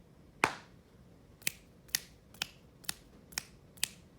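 A hand patting the thigh once, marking the last of four long beats. Then come six crisp finger snaps, evenly paced at about two a second, for the short beats of a practised rhythm.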